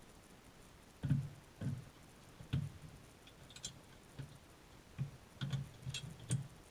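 A series of about a dozen irregular light knocks and clicks, starting about a second in, with a cluster near the end.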